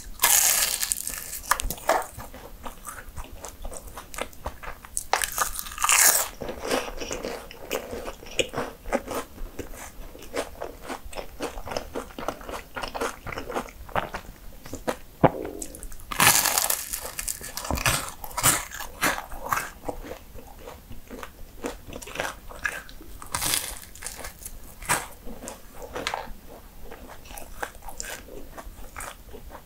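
Bites into flaky mini pastries: the crisp puff-pastry layers crackle and crunch, followed by steady chewing. The biggest crunches come near the start and at about 6, 16 and 23 seconds in, with finer crackling chews between them.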